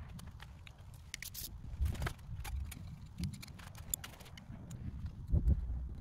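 Small metallic clicks and rattles of cell-tap wires with ring terminals and a ring spanner being handled on a battery pack's bus bars, with a dull thump about two seconds in and a louder one near the end.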